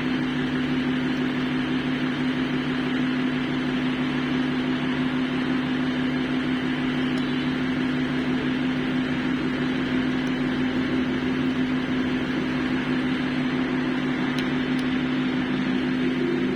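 A steady mechanical hum with a constant low tone over an even hiss.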